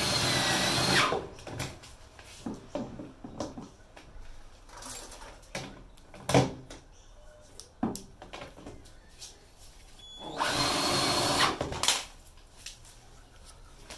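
Power drill driving screws into a washing machine's drum assembly: two short runs with a steady motor whine, one at the start and one a little before the end, with light clicks and knocks between them.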